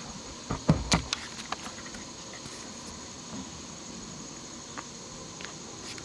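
A steady, high-pitched chorus of insects, with a few sharp knocks and clunks about a second in as the camera is set onto its stand.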